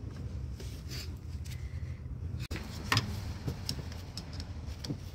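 Scattered light clicks and handling noise from gloved hands working a rubber heater hose and its spring clamp in an engine bay, over a steady low hum.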